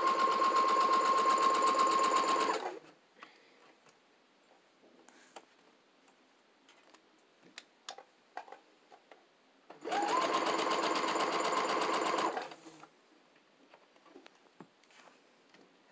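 Brother electric sewing machine stitching in two runs of about two and a half seconds each, one at the start and one about ten seconds in, with rapid needle strokes over a steady motor tone. Faint clicks in between.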